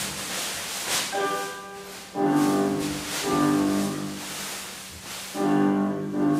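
Instrumental music of sustained, orchestral-sounding chords that swells in phrases, one starting about two seconds in and another near the end, with short rushes of noise laid over it.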